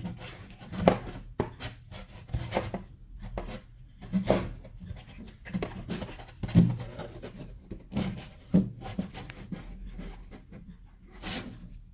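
Hands working on the plastic parts of a digital microscope being taken apart, pulling out the part that holds its ribbon cable: irregular clicks, taps and rubbing. The sharpest clicks come about a second in, near six and a half seconds and near eight and a half seconds, with a longer scrape near the end.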